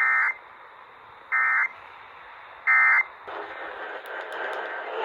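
Three short buzzy Emergency Alert System SAME data bursts, about a second apart. They are the end-of-message code that closes the broadcast alert. A steady hiss of radio audio follows from about three seconds in.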